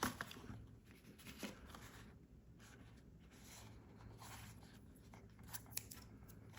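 Faint handling noise: a few light clicks and soft rustles, spaced out, over a steady low hum.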